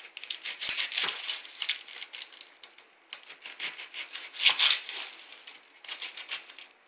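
Dry, papery onion skin crackling as it is peeled off by hand: a rapid, irregular run of small crisp crackles, loudest about four and a half seconds in.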